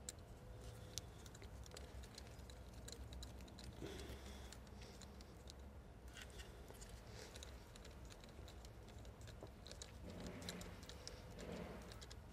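Faint, scattered small clicks of a screwdriver turning the screw of a worm-drive hose clamp to tighten it, over a low steady hum.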